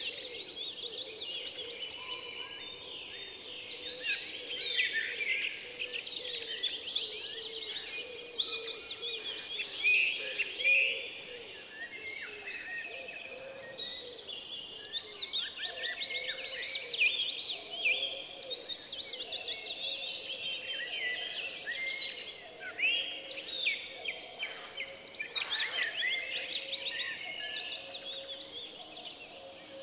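Many small birds chirping and singing over one another in a continuous chorus, loudest around six to eleven seconds in.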